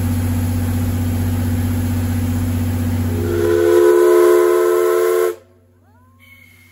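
Steam locomotive C11 123 standing with a steady hiss and low hum, then its steam whistle blows about three and a half seconds in. The whistle sounds several notes at once for about two seconds, louder than the hiss, and cuts off suddenly.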